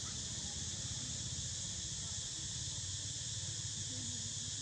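Steady outdoor ambience: a continuous high-pitched insect drone over a low rumble.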